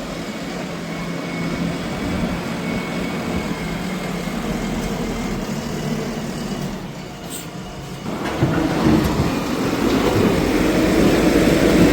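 JCB backhoe loader's diesel engine running steadily, then growing louder about eight seconds in as it takes more throttle.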